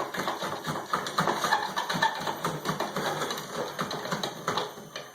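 Rapid, irregular clicking and rattling of metal hardware being worked by hand on a light fixture's mounting.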